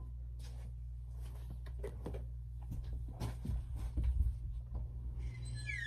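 Scattered soft knocks and rustling as the phone is handled and moved, over a steady low hum. A short high cry starts near the end.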